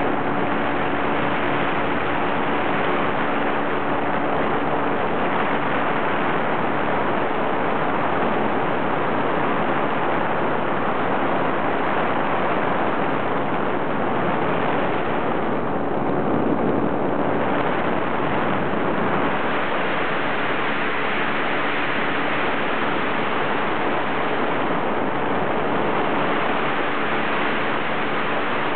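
Steady rush of air over the microphone in flight, with a faint, even drone beneath it.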